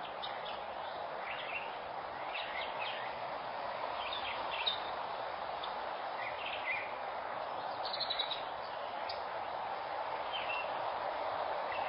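Outdoor ambience through a security camera's microphone: a steady background hiss with scattered short, high bird chirps.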